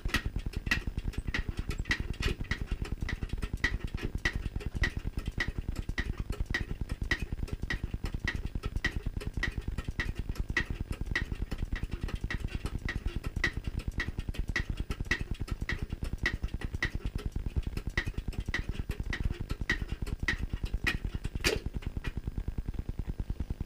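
A machine running with a fast low pulsing, and a short high click ticking very regularly about one and a half times a second. One sharper click comes near the end.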